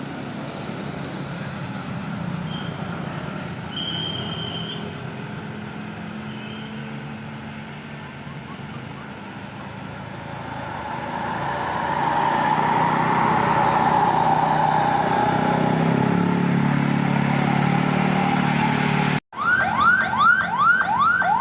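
Street traffic and engine noise that grows louder about halfway through. After a sudden break near the end, a car's aftermarket siren-style horn sounds a rapid whoop, rising notes repeating about three times a second.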